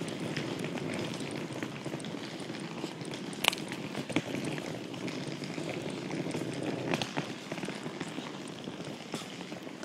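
Crackling, rustling handling noise from a phone's microphone carried while walking, with a few sharp clicks in the middle.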